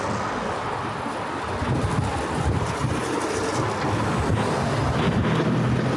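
City street traffic: the low, steady engine noise of vehicles passing close by, with some wind on the microphone.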